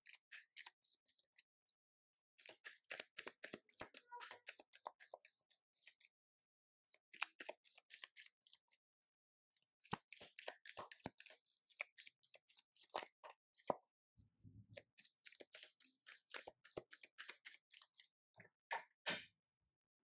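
Tarot cards being shuffled by hand: faint, quick runs of soft card clicks in several bursts with short pauses between them.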